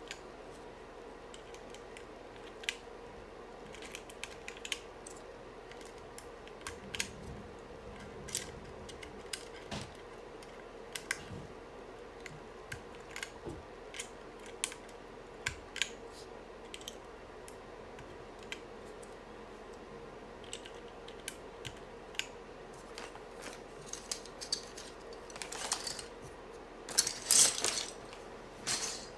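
Irregular, scattered clicks and taps from a UT47.2 40% mechanical keyboard being handled and its keys pressed, with a denser run of louder clicks near the end.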